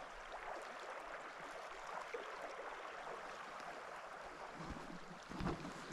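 River water flowing over a shallow riffle, a steady, soft rushing. A few low thuds come in near the end.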